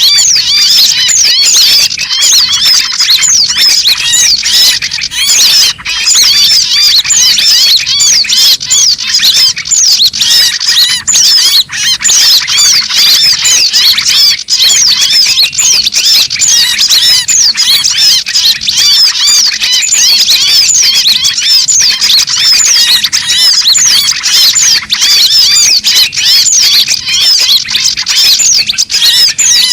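A loud, dense, unbroken chorus of rapid, high chirps and squeaky calls from small songbirds. It is a bird-lure (pikat) recording meant to draw small birds in.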